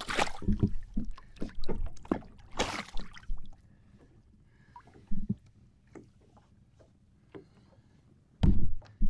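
Water splashing as a released smallmouth bass kicks off at the surface beside the boat, followed by a quiet stretch with a few small knocks and drips. A loud bump near the end.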